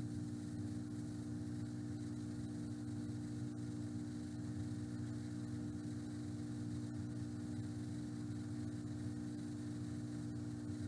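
Steady electrical hum made of several fixed low tones, with a few faint ticks.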